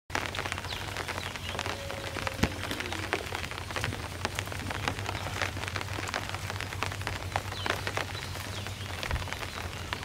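Steady rain falling, a constant hiss with many separate, close drop hits scattered through it.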